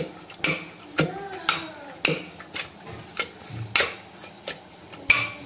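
A metal utensil knocking against the inside of a steel pot while cooked greens and dal are mashed by hand, sharp clacks about twice a second.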